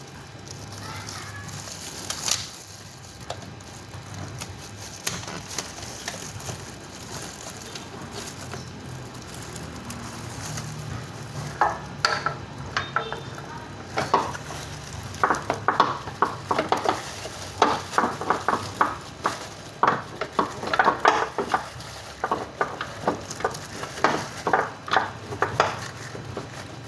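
Hand tools working on car engine parts during reassembly: irregular metallic clicks, clinks and knocks, sparse at first and coming thick and fast in the second half, over a steady low hum.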